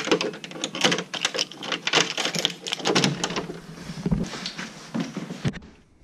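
A key on a key ring turning in an old door lock: a quick run of metallic clicks and jangling rattles that thins out after about three seconds, as the door opens.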